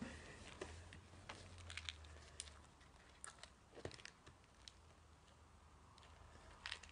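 Faint chewing of sweets in the mouth: scattered soft crunches and clicks over near-silent room tone.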